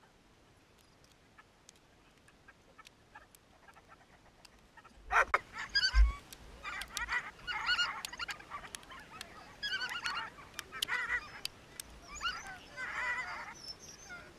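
A team of sled dogs in harness yelping and howling in short, excited, rising-and-falling cries, which begin about five seconds in and keep on in bursts. There is a single thump on the sled soon after they start.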